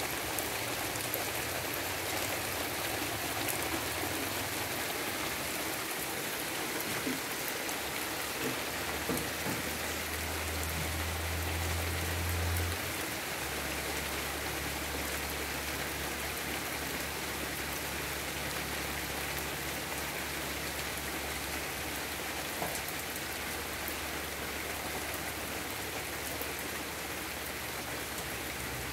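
Steady rain falling on a flooded dirt yard, the drops striking standing puddles. A faint low hum lies under it, stronger for a few seconds near the middle.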